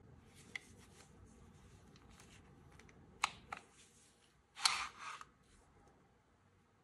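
Umarex Legends P08 CO2 BB pistol being handled in gloved hands: soft handling rustles, a sharp metallic click about three seconds in, then a louder scrape lasting about half a second as the metal stick magazine slides out of the grip.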